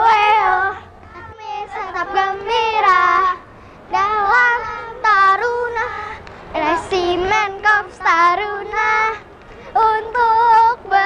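Children singing a song in short phrases, with brief pauses between them.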